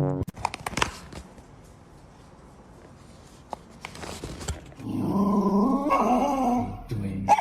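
A dog vocalising, starting about five seconds in, in a loud, wavering pitch. A few sharp knocks come just at the start.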